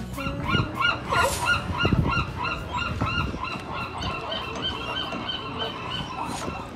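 California sea lions barking: a long, steady run of repeated honking barks, about three a second.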